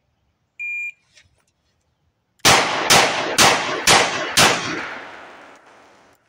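A shot-timer beep, then five .357 Magnum shots from a Rossi RP63 revolver, about half a second apart, each ringing out with a long echo. The string stops at five because the cylinder locked up and the sixth shot did not fire, which the shooter puts down to a poorly crimped bullet creeping forward under recoil.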